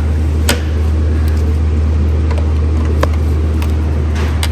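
A steady low drone, with a few sharp metal clicks as pliers work a spring hose clamp and the radiator hose is worked off the thermostat neck.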